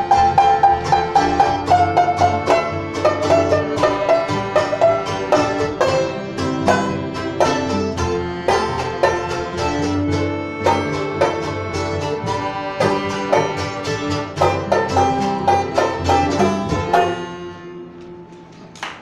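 Live banjo and accordion playing a bluegrass-style tune, the banjo picking quick notes over held accordion tones. The tune ends about seventeen seconds in and the sound fades away.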